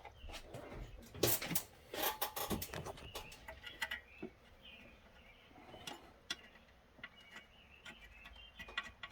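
Irregular light clicks, taps and scrapes of metal parts and hand tools being handled while a valve cover is fitted and bolted down on an engine.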